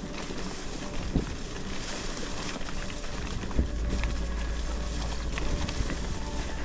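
Bicycle rolling along a rough dirt track: steady tyre and rattle noise with a couple of sharp knocks from bumps, and a low wind rumble on the microphone from about three and a half seconds in.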